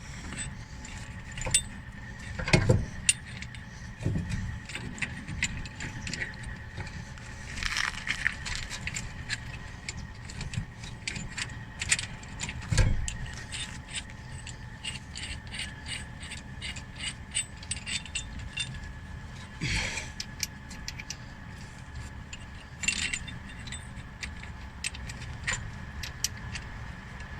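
Metal hand tools at work on a car's brakes during a pad change: irregular clicks and clinks, at times in quick runs like a ratchet, with a few heavier knocks.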